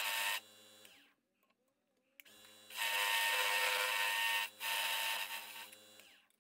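Nova Comet II wood lathe running while a parting tool cuts into a spinning padauk blank: loud scraping cutting noise over the motor's steady hum. The cut stops about half a second in, the sound drops away for about a second, then the lathe hums again and the tool cuts twice more before the motor hum fades near the end.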